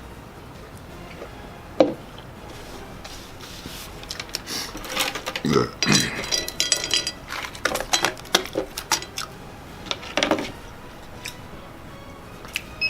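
Clatter and clinks of things being handled on a table, like dishes or cutlery: one sharp click about two seconds in, then a run of rapid knocks and clinks through the middle.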